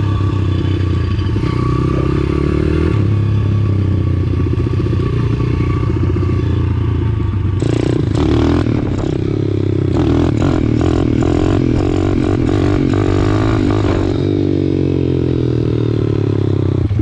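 Small single-cylinder four-stroke pit bike engines running steadily, with a spell of rapid clattering and rattling from about eight seconds in until about fourteen.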